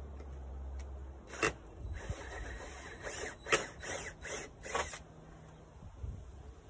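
Cordless DeWalt drill with a hole-saw bit stuck in the garage wall's wood, run in short bursts. From about one and a half to five seconds in come about six brief rasping grinds as the bit chews at the wood, and then it goes quieter.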